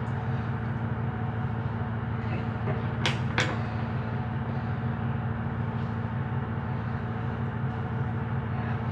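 Steady low hum with two sharp clicks about three seconds in.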